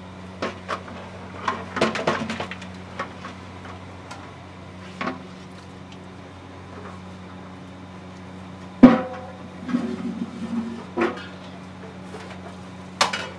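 Metal clanking from large aluminium cooking pots being handled: a ladle and pot knocking against metal rims in scattered, irregular knocks, the loudest about nine seconds in. A steady low hum runs under it.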